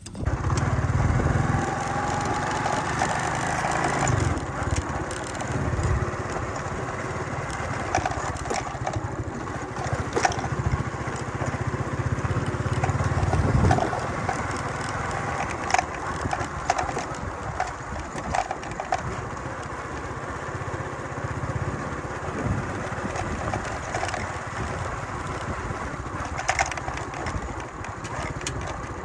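Motorcycle running while riding along a rough, muddy dirt track, with rumbling wind noise on the microphone and a few sharp knocks from the bumps.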